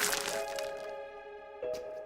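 A loud crackling noise that fades away within the first second, over background music with held notes, then a single sharp click near the end.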